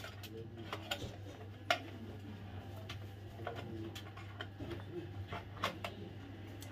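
Scattered light metallic clicks and taps of a screwdriver working on a room heater's sheet-metal frame, a few separate clicks over a low steady hum.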